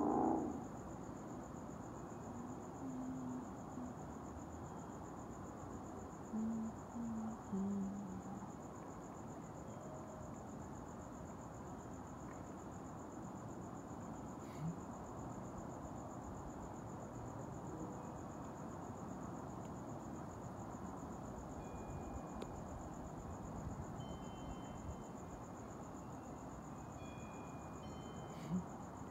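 Night crickets chirping in a steady chorus, heard as one continuous high trill over low background noise. A few short, faint low tones come in during the first eight seconds.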